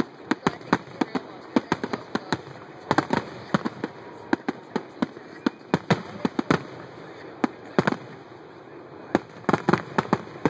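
Fireworks finale: a rapid, irregular barrage of aerial shell bursts and crackling reports, thinning briefly about three-quarters through before picking up again.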